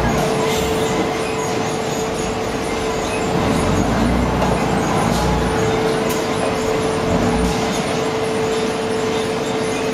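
Wheel loader's diesel engine running as it tips a bucket of clay onto a pile and drives off, swelling louder in the low end about halfway through and again near the end, over a steady high hum.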